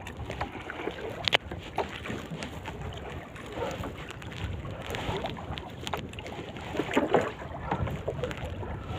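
Wind buffeting the microphone over water lapping at a small fishing boat, with a single sharp knock about a second and a half in and a few small clicks.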